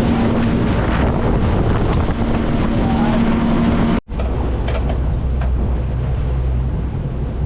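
Sportfishing boat's engine running, with wind buffeting the microphone and water rushing past. About four seconds in the sound cuts off abruptly, and a deeper steady engine rumble with less wind follows.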